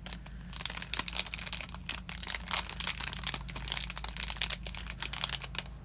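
Packaging crinkling and rustling as a stack of flashcards is worked out of it: a dense, irregular run of sharp crackles.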